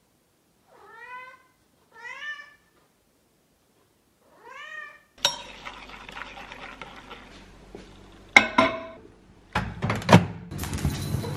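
Domestic cat meowing three times, each a short call that rises and then falls in pitch. About five seconds in, the background noise cuts in abruptly, and a few sharp knocks follow near the end.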